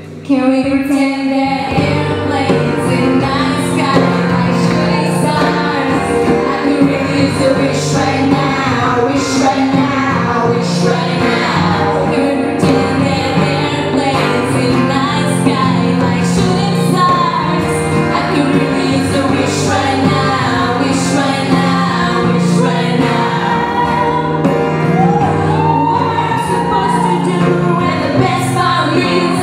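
Live acoustic guitar strummed in a steady rhythm under two young women singing a pop song together into microphones. The music comes in suddenly with a loud strum just after a brief dip in level.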